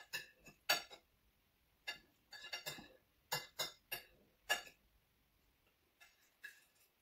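Cutlery clinking and scraping on a plate in a string of sharp, irregular clicks while the last of the food is gathered up; the clicks thin out near the end.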